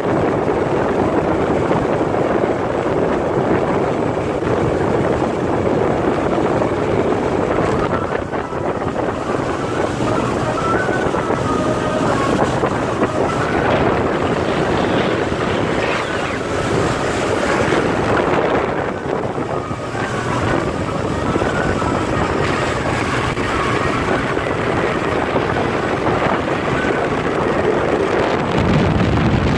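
Speedboat running at speed on open sea: a steady engine drone mixed with rushing water off the hull and wake, and wind buffeting the microphone.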